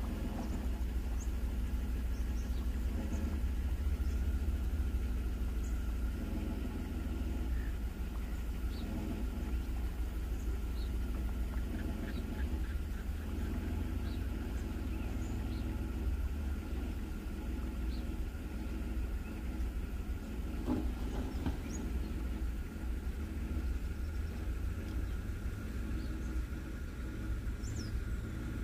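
An engine idling steadily, with faint short bird chirps scattered over it.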